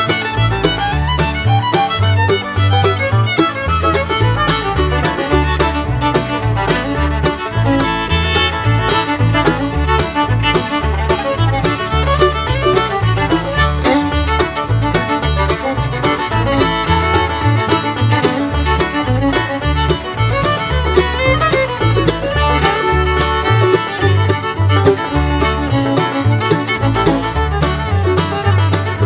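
Background instrumental music with a steady, evenly repeating bass beat.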